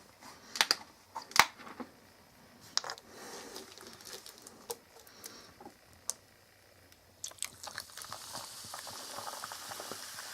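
Ice cubes clinking sharply against a glass a few times, then from about eight seconds in a steady fizz of carbonated ginger ale poured over the ice.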